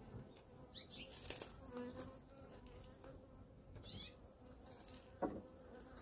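Honey bees buzzing faintly around a hive, with one passing close by about two seconds in.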